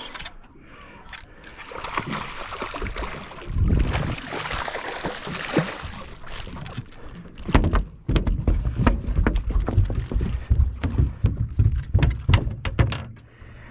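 Water splashing as a hooked mackerel is brought in beside the boat, then the mackerel flapping on the boat's deck: a rapid, irregular run of thumps and slaps over the last five seconds or so.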